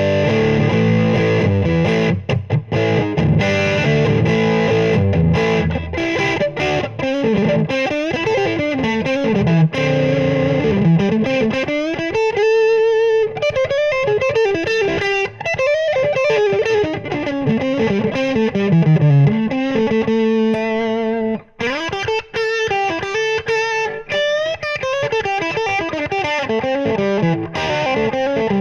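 Electric guitar, an Oscar Schmidt OE20 Les Paul-style guitar with humbucking pickups, played through a VOX VT40X modeling amp on a Marshall-type distorted tone. Chords first, then single-note lead runs moving up and down the neck.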